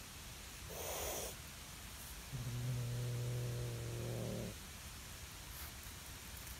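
Cat warning off another cat from its fish: a short hiss about a second in, then a low, steady growl of about two seconds.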